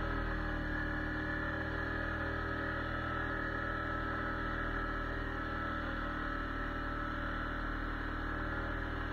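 ATV engine running at a steady speed, a continuous drone that hardly changes in pitch.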